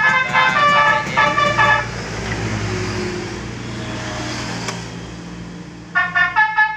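Electronic basuri musical horn on a 1980s Yamaha motorcycle playing a tune of quick stepped notes, which stops about two seconds in; the motorcycle engine runs steadily underneath, and the horn tune starts again near the end.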